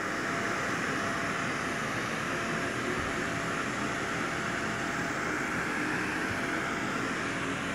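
Electric inflatable blower running steadily, a whooshing rush of air with a faint steady whine, filling a large backyard inflatable.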